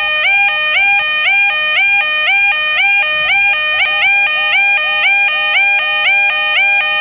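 Railway level crossing warning alarm sounding continuously: a rapid electronic two-note tone that repeats over and over, each note stepping up from low to high.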